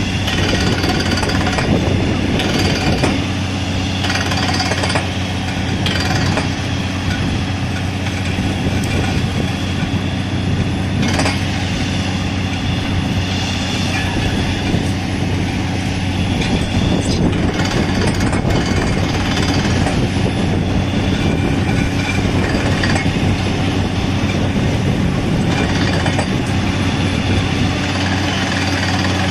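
Truck-mounted water-well drilling rig at work, a continuous rapid hammering as the drill bores down over a steady low engine hum, with cuttings and spray blowing out of the hole.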